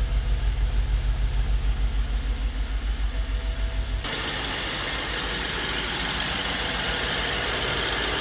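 BMW 750i's twin-turbo V8 idling rough with an uneven, pulsing beat, the sound of a misfire that the owner puts down to worn ignition coils and spark plugs. About halfway through, the sound changes abruptly to a steadier, hissier engine noise.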